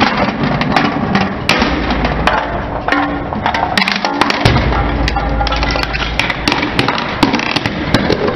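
Many sharp cracks and snaps of hard plastic cups and lids breaking as a car tyre rolls over and crushes them on concrete, over a low rumble from the tyre.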